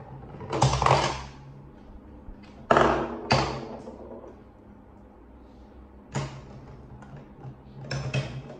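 Hard plastic balls clattering and rolling through a LeapFrog Peek-A-Shoe octopus toy, in several short bursts: near the start, around three seconds in, around six seconds in and again near the end.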